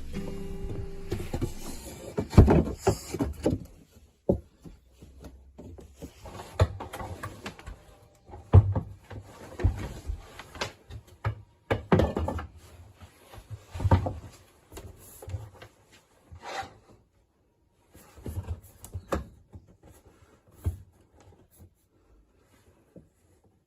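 Irregular wooden knocks, scrapes and rubbing, a second or two apart, as boards are handled and fitted.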